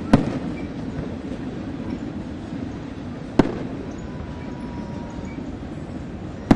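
Aerial firework shells bursting: three sharp bangs about three seconds apart, over a steady low rumble.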